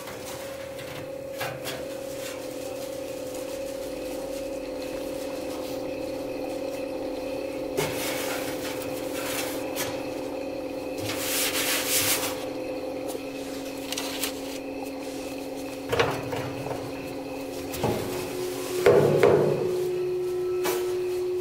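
Vacuum cleaner running steadily while its nozzle scrapes and sucks up packed lint inside a dryer cabinet, with a loud rush of suction about halfway through. Several knocks against the metal come near the end, and the motor's pitch shifts as the airflow changes.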